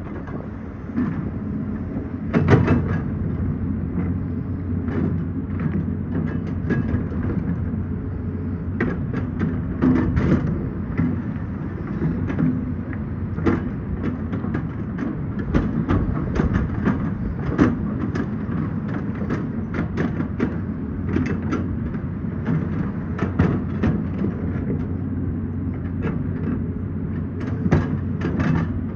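Excavator's diesel engine running steadily, with frequent sharp clanks and knocks of the bucket and rock throughout.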